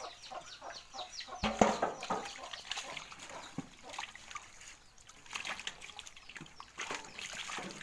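Water and small live fish splashing and trickling in a metal basin, with one loud knock about a second and a half in. Chicks peep in the background during the first second and a half.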